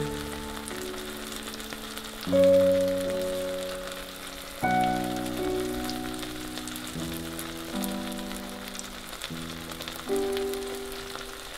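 Background music of slow held chords, changing every second or two, over a faint steady sizzle of egg frying in a pan.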